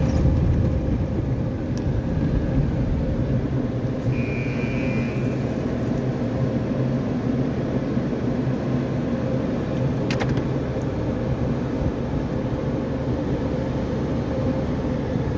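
Automatic car wash machinery heard from inside the car: a steady rumble of water spray and rotating cloth brushes working over the body and windshield. A brief high tone about four seconds in and a single sharp tick about ten seconds in.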